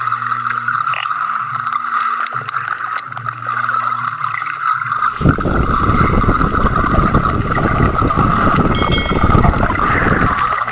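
Underwater sound: a steady whine with an on-off low hum, then from about five seconds in, loud churning water noise as swimmers dive and kick close by.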